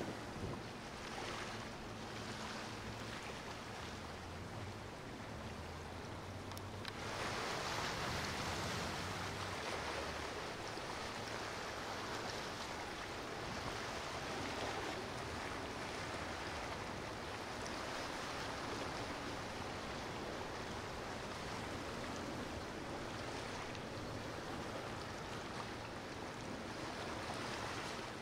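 Steady rush of water and wind with a faint low hum underneath; the rush gets louder suddenly about seven seconds in.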